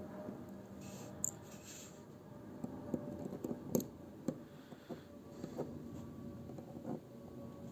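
Faint, irregular clicks and light scrapes of small watchmaker's tools working at the screws of a vintage CYMA 17-jewel mechanical watch movement.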